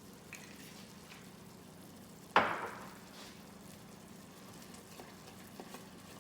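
Honey butter sauce sizzling faintly in a pan, with a few light clicks of stirring. About two and a half seconds in, a single sharp clink of a utensil against the pan rings briefly and fades.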